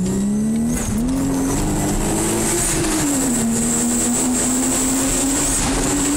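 Twin-turbo car engine accelerating away from a standstill, heard from inside the cabin: the revs climb, dip at a gear change about a second in, climb again and fall at another shift about three seconds in, then hold steady as the car cruises. A thin steady high whistle runs above the engine sound.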